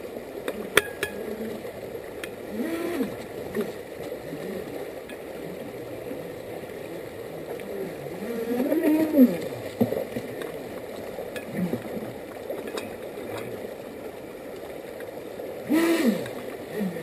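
Radio-controlled jet boat's motor and water-jet pump whining up and down in pitch as it is throttled, loudest about halfway through and again near the end, over the steady rush of a shallow creek.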